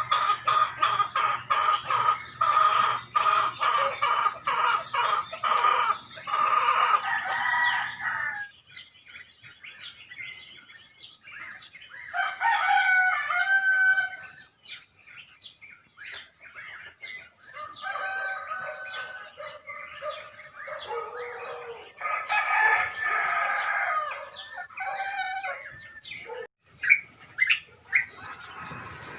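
Roosters crowing several times in turn, with small birds chirping around them.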